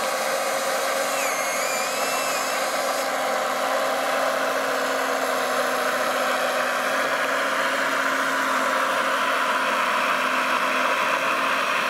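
Radio-controlled Liebherr 956 model excavator running, a steady, even whir with a few constant hum tones.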